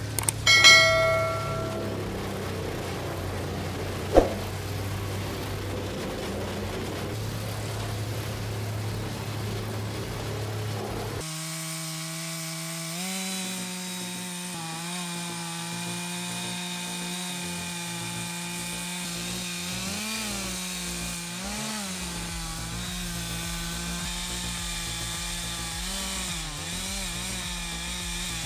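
Wood-processing machinery running: a steady low hum, with a sharp metallic clang that rings briefly about half a second in and a single knock around four seconds. About eleven seconds in it changes abruptly to a steady engine-driven cutting machine whose pitch dips briefly several times, as it takes load.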